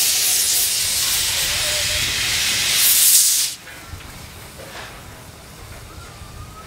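C56 160 steam locomotive moving off with its cylinder drain cocks open, blowing a loud, steady hiss of steam. The hiss swells about three seconds in, then cuts off suddenly, leaving a much quieter background.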